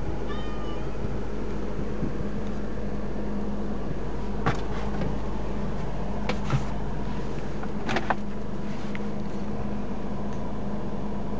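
Steady low hum of a car driving slowly, engine and road noise heard from inside the cabin, with a few short clicks and knocks about halfway through.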